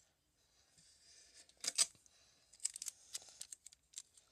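Paper and sticky tape being handled in crafting: short crackling, rasping sounds, the loudest about two seconds in, then a quick run of them a little later and one more near the end.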